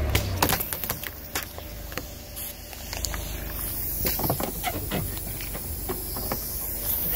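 Car tyre rolling over a row of liquid-filled plastic syringes: a string of sharp plastic cracks and pops as the barrels break and squirt, over a steady hiss.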